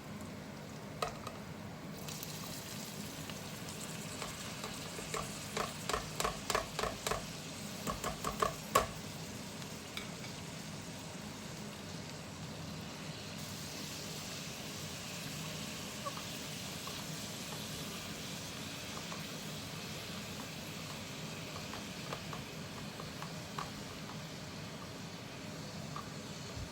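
Food frying in hot oil, sizzling steadily from about two seconds in. A run of quick knocks, about two a second, comes for a few seconds near the start as a spoon stirs against the pan.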